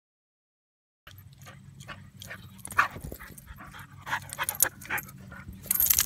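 Siberian husky panting close to the microphone, starting about a second in. Near the end comes a loud rustle as its fur brushes against the microphone.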